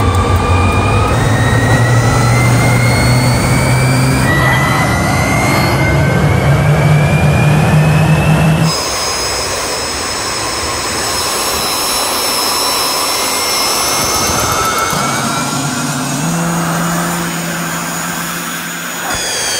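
Small jet turbine engine on a test stand starting up: a whine that rises steadily in pitch as it spools up, over a loud rushing exhaust noise. A steady run follows, with high whines over the rush.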